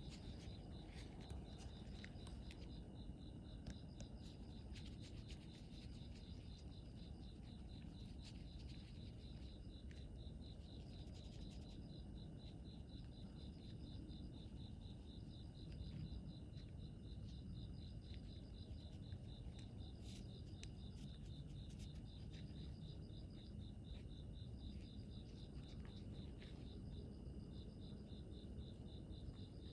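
Insects chirping in fast pulsed trills, high-pitched and repeated in runs with short breaks, over a faint low rumble.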